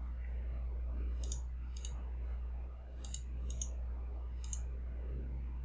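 Five crisp computer mouse clicks, two close together, then two more, then a single one, over a steady low hum.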